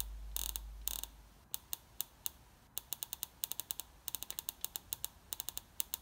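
HEI distributor being spun by hand on a battery-powered bench spark test, which gives sharp clicks: single ones at first, then irregular quick runs of several a second.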